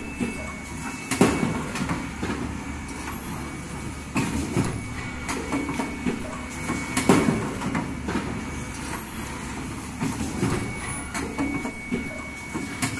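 Machinery of an automatic cup mask production line running: a steady mechanical clatter with irregular clicks and knocks and a faint steady high tone, and two louder short bursts, about three seconds and nine seconds in.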